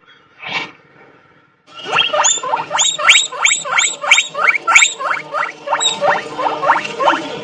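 A small animal squeaking: after a brief sound and a short pause, a quick, even series of short squeaks, each rising in pitch, about three a second, starting about two seconds in.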